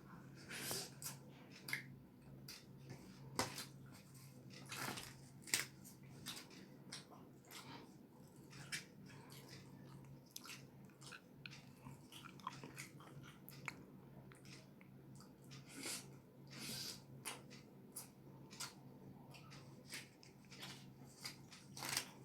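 Close-miked chewing of roti dipped in tadka: irregular wet mouth smacks and soft clicks, some louder bites standing out.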